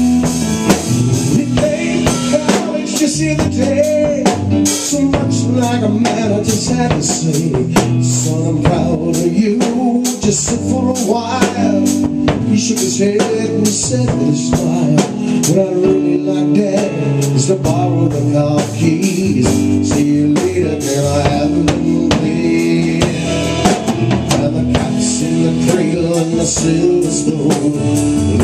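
A two-piece band playing live: a Sonor drum kit keeping a steady beat under held notes from a Korg keyboard, with a man singing lead over it.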